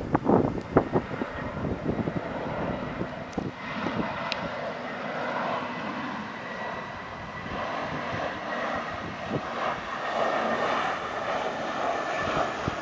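Jet engines of an Airbus A320-family airliner on final approach with gear down: a steady high whine over a rumble that grows louder as the plane nears. Wind buffets the microphone in the first second or so.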